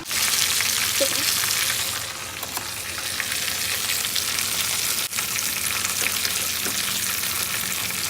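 Flour-and-egg-battered chicken wings frying in hot oil: a steady, dense sizzle that drops a little in level about two seconds in.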